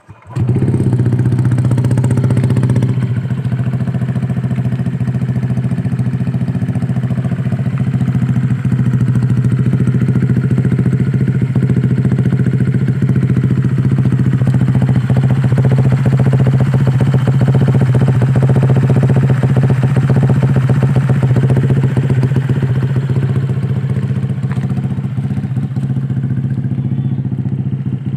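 Honda Click 150i scooter's single-cylinder four-stroke engine starting up and then idling steadily through an aftermarket SC Project exhaust, loud and even.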